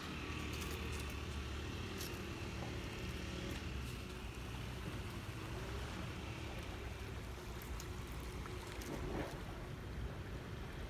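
Faint steady engine hum over a continuous low rumble outdoors, with a few faint clicks.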